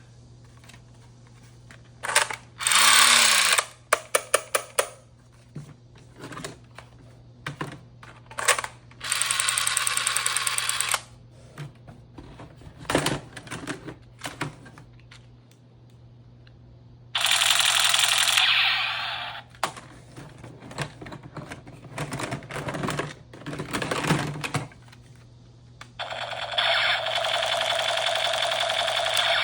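Toy blaster firing in several bursts of one to two seconds, a rapid mechanical rattle, with sharp clicks and taps between bursts.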